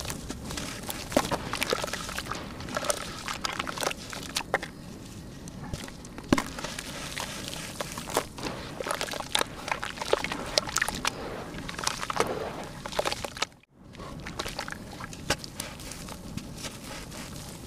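Lumps of dry red dirt crushed and crumbled by hand, giving a dense run of gritty crackles and sharp snaps as the clumps break. Crumbs drop into a basin of muddy water. The sound breaks off for a moment about two-thirds of the way through.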